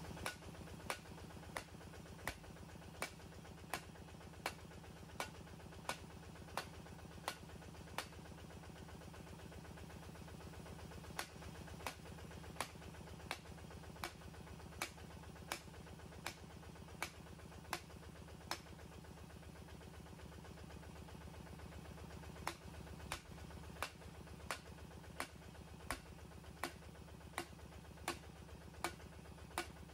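Water-well drilling rig's engine running steadily, with a sharp click or knock repeating about one and a half times a second that stops for a few seconds twice.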